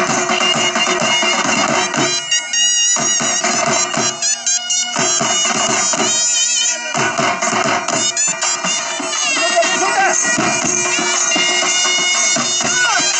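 Music led by a reedy wind instrument playing a wavering melody over steady held drone notes, with brief breaks in the lower accompaniment.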